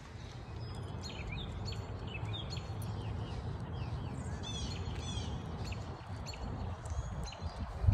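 Small birds chirping, many short high chirps and quick downward-sweeping notes in a rapid series, over a steady low rumble.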